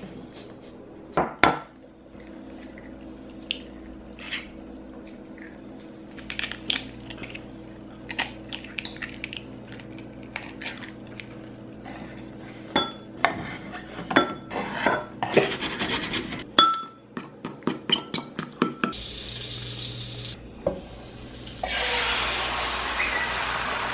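Kitchen sounds of an omelette being made: scattered clicks and knocks of utensils against a ceramic bowl and cutting board, with a quick run of clinks in the bowl past the middle. Near the end, a steady loud sizzle as the beaten egg mixture is poured into hot oil in a frying pan.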